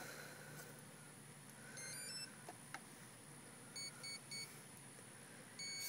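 Hobbywing Platinum Pro 40A ESC's power-up tones played through the helicopter's brushless motor as the flight battery is connected. A quick rising run of beeps comes about two seconds in, then three short beeps, then a longer beep near the end, which signals the ESC is armed and ready.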